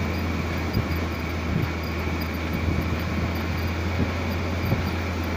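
Fully loaded Isuzu FTR diesel truck under way, heard from inside the cab: a steady low engine drone with road and wind noise.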